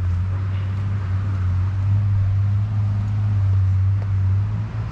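Vehicle engine running, a steady low drone whose note rises slightly near the end.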